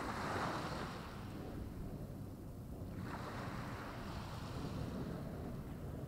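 Small waves breaking on a sandy, pebbly beach and washing up the shore: one breaks right at the start and fades away, and a second breaks about three seconds in, over a steady low rumble.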